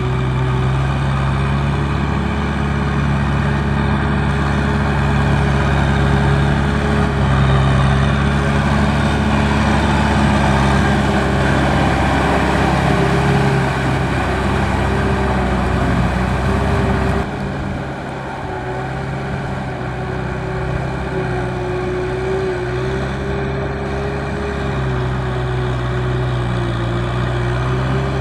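Kubota M6040 tractor's four-cylinder diesel engine running steadily under load as it tows a loaded trailer through mud. About two-thirds of the way through, the sound abruptly drops a little and changes character.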